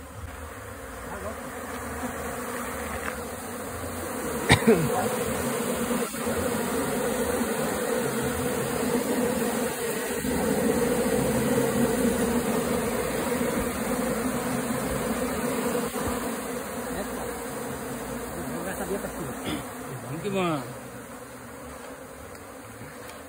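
A honeybee swarm buzzing steadily, a dense hum of many bees in flight while the colony is driven out of a hollow branch into a hive box. The hum swells in the middle and eases toward the end. One sharp knock comes about four and a half seconds in.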